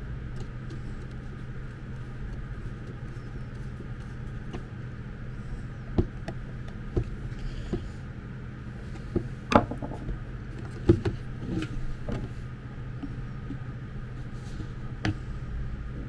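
A long screwdriver working a screw deep inside an electric kettle's plastic handle, giving scattered clicks and knocks of metal on plastic, with the sharpest ones near the middle. A steady low hum runs underneath.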